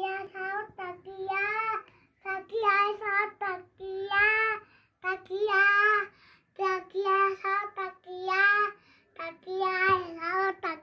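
A young boy singing loudly in a run of short phrases of held, slightly wavering notes, with brief breaths between them.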